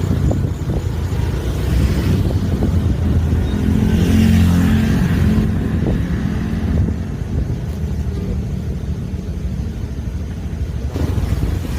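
Bus engine running as the bus goes by, growing loudest about four seconds in and then easing off.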